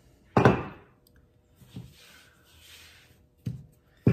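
Wooden rolling pin knocking down on a countertop while fondant is rolled thin: one sharp knock about half a second in, then fainter knocks, with a soft rasp of the pin rolling over the fondant in between.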